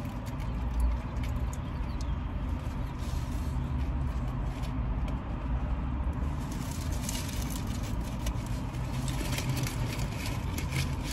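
Burrito eating: paper wrappers crinkling and mouth sounds of chewing, the clicks and rustles growing busier from about six seconds in, over a steady low rumble inside a car's cabin.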